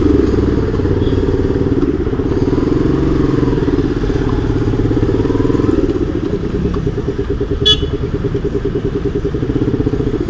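Motorcycle engine running with a steady, rapid pulsing exhaust beat, easing slightly about six seconds in. A brief sharp click or chirp cuts in about three-quarters of the way through.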